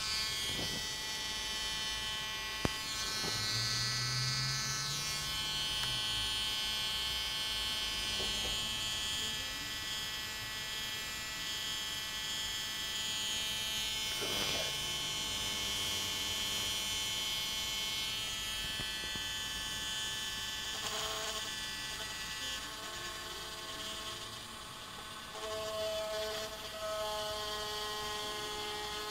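Small electric polishing tool running with a steady high whine while the edges of a cut-down SIM card are polished; its tone shifts slightly near the end.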